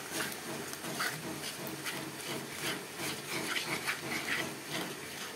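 Masala paste of ground spices, ginger and garlic sizzling as it fries in a kadai, with a spatula scraping and stirring it against the pan in short, irregular strokes: the masala being browned before the chicken goes in.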